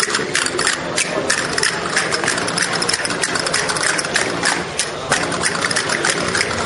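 Spanish dance music with a dense, fast run of sharp percussive clicks and claps over a steady pitched backing.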